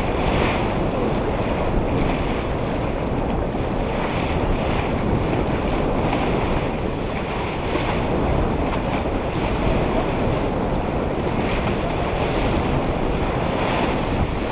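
Steady wind rumbling on the microphone over water rushing and splashing along the hull of a sailing yacht under way.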